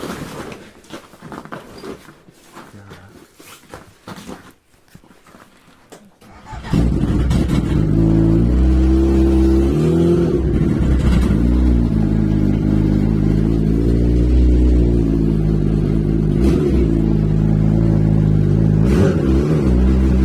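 A few knocks and clicks of handling, then about seven seconds in a snowmobile engine starts suddenly and runs steadily, with a few brief rises in revs.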